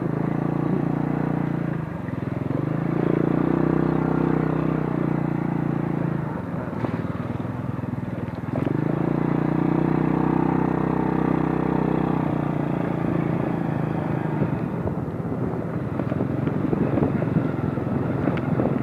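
Small motorcycle engine running while being ridden. It is held at steady higher revs twice for a few seconds each and eases off in between and toward the end.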